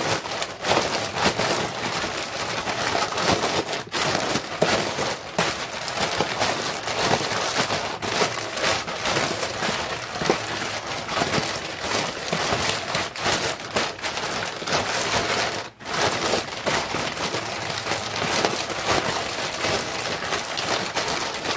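Zip-top plastic bag of chicken wings in marinade being turned and squeezed by hand, the plastic crinkling and crackling continuously close to the microphone, with a brief pause near the end.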